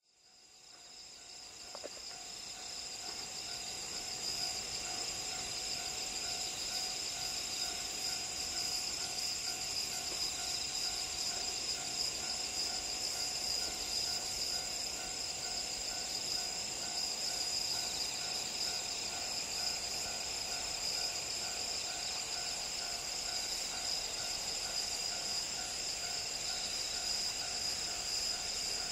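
Chorus of crickets and other night insects chirping, several overlapping high-pitched songs, some pulsing steadily, fading in over the first few seconds.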